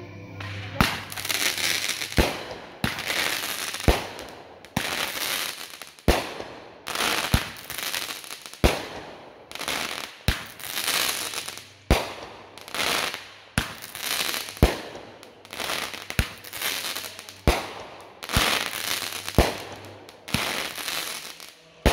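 Aerial fireworks going off in quick succession, about one sharp bang a second, each followed by a crackling fizz as the stars burst and fall.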